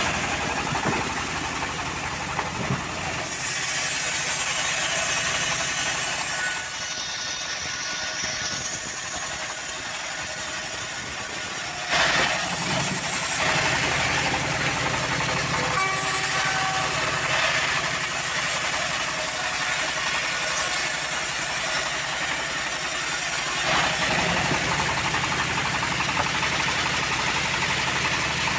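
Homemade bandsaw mill running, driven by a belt from a stationary engine, with its blade cutting a teak log. The noise is steady, with a few sudden shifts, the sharpest about twelve seconds in.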